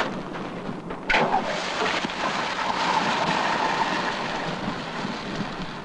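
Water thrown onto an overheated railcar journal bearing (a hot box) hissing into steam: the hiss starts suddenly about a second in, holds steady, and fades near the end.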